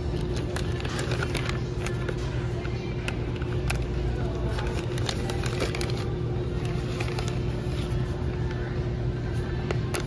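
Plastic ramen packets crinkling and crackling as a hand handles them and lifts one off the shelf, many short irregular crackles over a steady low background hum of the store.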